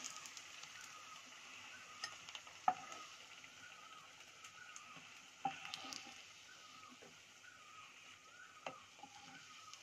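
Hot oil sizzling around deep-fried sabudana vadas as they are lifted out, the sizzle slowly dying down. A few sharp clicks of a utensil against the pan sound through it.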